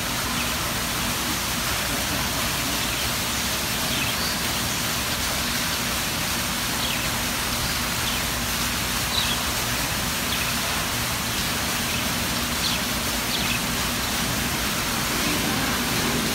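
Indoor multi-tier artificial rock waterfall fountain splashing steadily: a constant rush of falling water. A few faint short chirps come through now and then.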